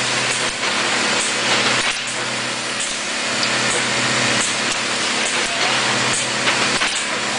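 Industrial machinery running steadily: a loud even hiss over a low hum, with a few faint clicks.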